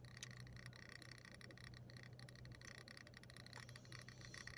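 Near silence: a faint steady low hum with faint light ticking in a car's cabin.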